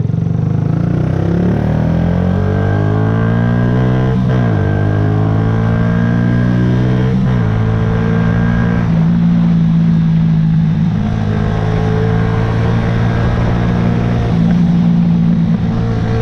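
Yamaha YZF-R125's 125 cc single-cylinder four-stroke engine accelerating, its pitch rising and dropping sharply at two upshifts about four and seven seconds in, then running at a fairly steady speed.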